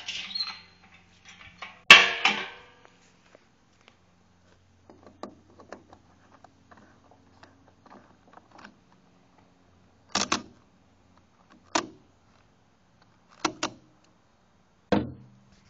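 Gas can being handled at the truck's filler: a sharp click about two seconds in, faint scattered clicks and rustling, then four sharper knocks over the last six seconds.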